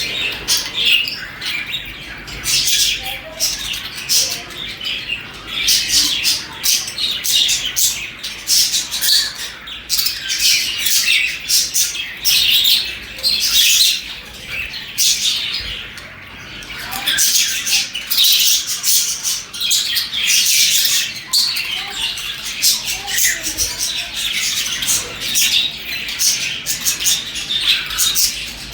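A group of budgerigars chirping and chattering continuously, a dense overlapping stream of short, high calls with occasional harsher squawks.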